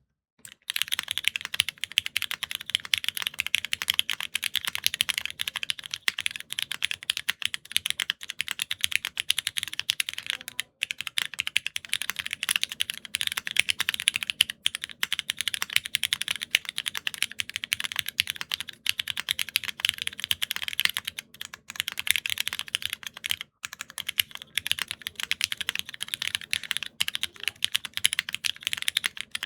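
Fast, continuous typing on a mechanical keyboard with Cherry MX Black linear switches, an aluminium plate, no foam and ABS keycaps. The typing breaks off briefly about eleven seconds in and again about twenty-three seconds in, likely where one keycap set gives way to the next.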